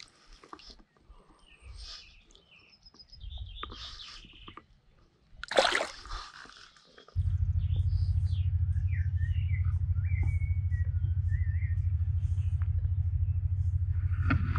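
Songbirds calling, and a loud splash of water about five and a half seconds in as a brown trout is let go from a landing net. About seven seconds in, a steady low hum with a fast even pulse starts suddenly and becomes the loudest sound, with birdsong warbling above it.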